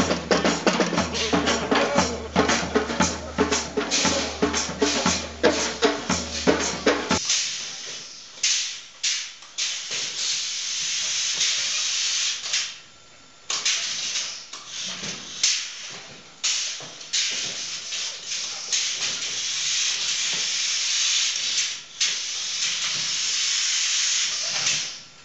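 Dance music with a steady drum beat for about the first seven seconds, then repeated hissing bursts, like compressed air venting, from a metal legged robot moving inside a steel shipping container, with short pauses between the bursts.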